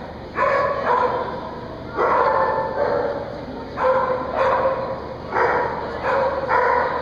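Australian Shepherd barking repeatedly, about eight loud barks in quick succession with short gaps between them, as it runs an agility course.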